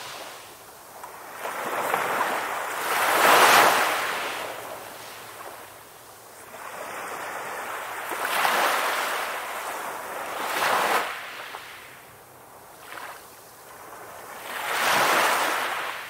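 Ocean surf: waves breaking and washing ashore, the rush of water swelling and fading four times, loudest about three seconds in.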